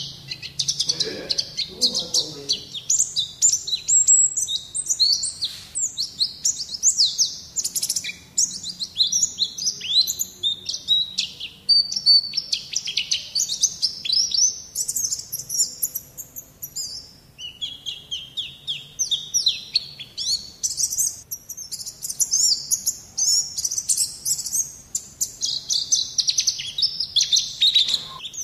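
White-eye (pleci) singing a long, fast, near-continuous chattering song of high twittering and trilling phrases, thinning briefly twice past the middle.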